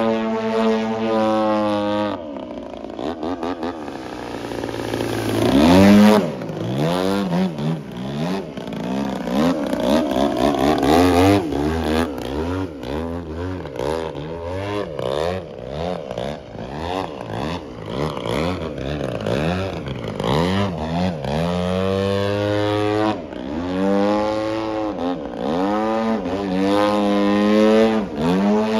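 Giant-scale RC aerobatic plane's DA-120 twin-cylinder two-stroke gas engine and propeller running, its pitch swooping up and down again and again through the manoeuvres and holding steadier near the end. It is loudest about six seconds in.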